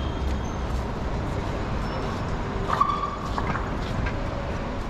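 City street ambience: a steady rumble of road traffic, with a brief faint tone about three seconds in.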